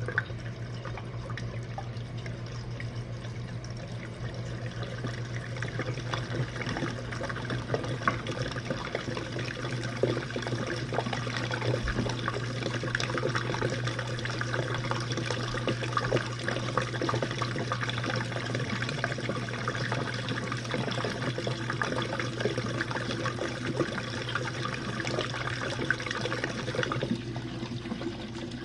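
Jenn-Air dishwasher running its Quick Wash cycle: a steady motor hum under water spraying and splashing inside the tub. The spray grows louder a few seconds in and drops away abruptly near the end.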